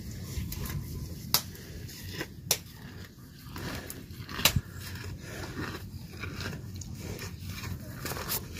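Cow chewing a mouthful of dry grass stalks: a steady low rustle with a few sharp crunches or snaps, the loudest about four and a half seconds in.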